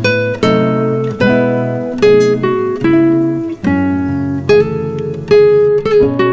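Background music: a plucked acoustic guitar picking out single notes and chords, a new note about every half second, each ringing and fading.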